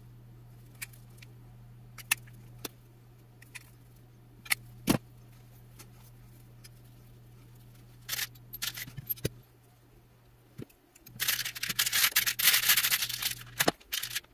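Scattered clicks and taps of hand tools and leather being handled on a steel bench plate, then about two and a half seconds of rustling and rattling near the end as small brass rivet parts are picked out and set down, ending in a sharp click.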